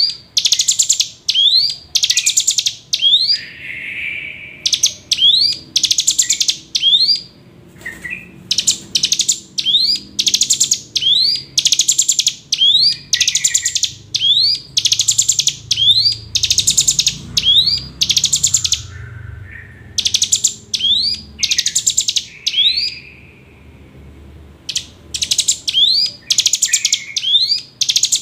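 Hill prinia (ciblek gunung) singing its buzzy song: a fast run of rasping notes, about two a second, each a quick rising sweep into a dry trill. The run stops briefly a few times, with softer, lower calls in between.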